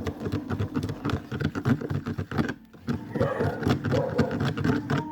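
Clear glue and slime activator being stirred in a plastic container as the mixture begins to set into slime: a dense run of quick wet clicks and scrapes.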